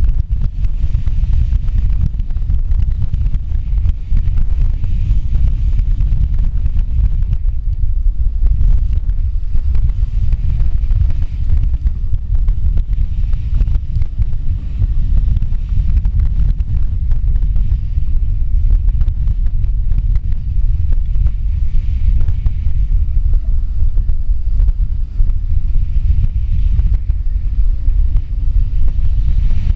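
Storm-force wind, around 55 knots, buffeting an exposed camera microphone on a sailboat's stern as a heavy, steady rumble, with a fainter hiss of breaking waves and spray.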